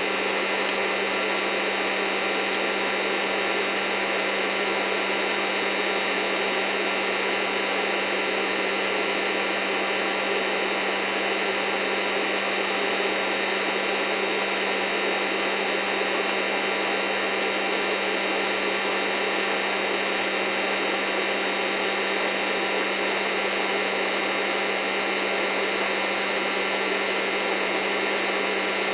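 FreshRoast SR700 hot-air coffee roaster running steadily: the fan's whir and the rattle of beans tumbling in the glass roast chamber, with a single faint snap a couple of seconds in. The roast is late, into what the roaster reckons could be second crack.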